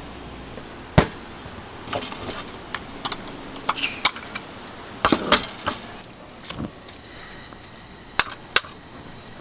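Sharp metallic clicks and knocks as a butane gas canister is fitted onto a small portable gas burner, with a faint hiss of gas around seven seconds in as the burner is lit.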